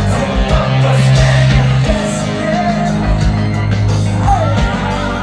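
Live band music played loud over a festival sound system: long sustained bass notes under electric guitar and a sung melody.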